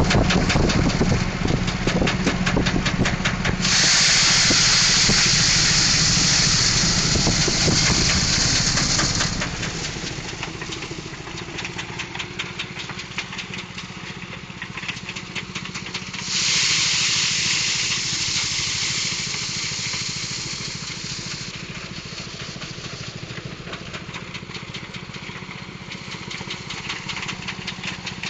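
Engine-driven rice threshing machine running steadily, with two spells of loud rushing hiss over its drone, one starting a few seconds in and the other about halfway through.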